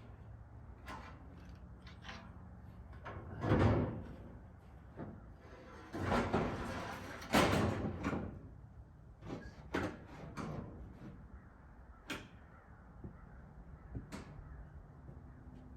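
Ribbed metal roofing sheets being handed up and shifted on the roof, making a series of scrapes and clanks. The loudest come about four and about seven seconds in.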